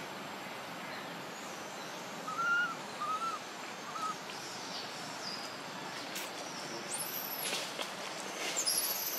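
A bird gives three short whistled notes a few seconds in, over a steady forest background. Near the end a baby long-tailed macaque lets out shrill, high squeals, with some rustling.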